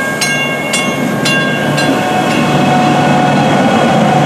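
A South Shore Line electric commuter train passes close by with its bell ringing about twice a second. The strikes fade out within the first couple of seconds, while the train's running noise grows louder with a steady whine.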